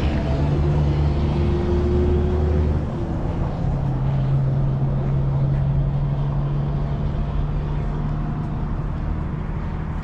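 Motor vehicle engine running close by, a steady low hum over road or outdoor noise, its pitch shifting about three seconds in.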